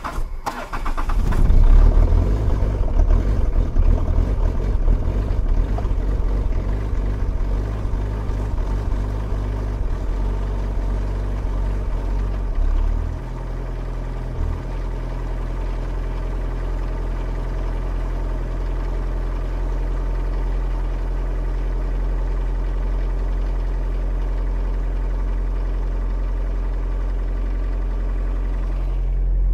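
Diesel car engine cold-started in freezing weather: it turns over briefly and catches about a second in, then runs rough and fast at a raised cold idle. About halfway through it drops to a lower, steady idle, while the exhaust gives off smoke.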